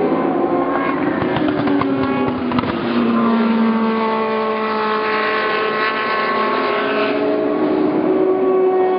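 Several endurance race car engines at high revs, overlapping. One falls in pitch a little after two seconds, then another holds a slowly rising note for several seconds before it fades.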